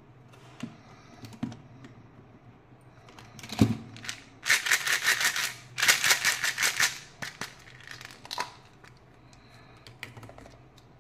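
Plastic surprise egg handled and shaken, the small candies and toys inside rattling against the shell in two quick bursts of fast clicking near the middle, after a single sharp knock; scattered plastic clicks and taps come before and after.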